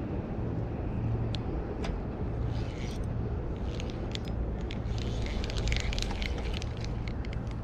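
Steady low wind rumble on the microphone, with a run of small clicks and rattles from hands working a spinning reel's handle, thickest about two thirds of the way through.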